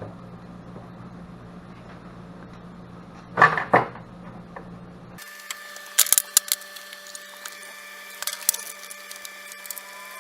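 Workshop handling sounds: a steady hum with one clatter, then, after an abrupt change of background about five seconds in, a scatter of sharp clicks and knocks of tools and parts.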